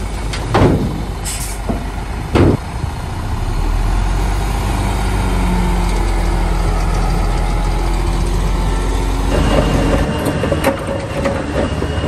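D20P bulldozer's diesel engine running steadily, with two loud metallic bangs in the first few seconds and a short hiss between them. The engine note changes about ten seconds in.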